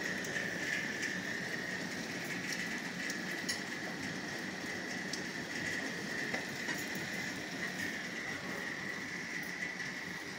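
Steady rain falling on the rooftops, with single drops ticking now and then close by. A steady high-pitched whine runs underneath throughout.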